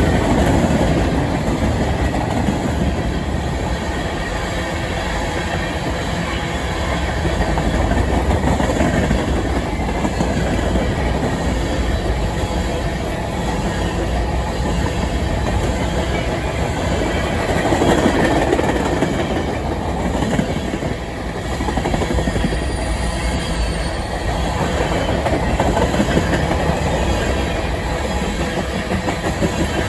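Freight cars of a long mixed freight train rolling past steadily: a continuous rumble of steel wheels on rail with clickety-clack over the rail joints, swelling and easing as different cars go by.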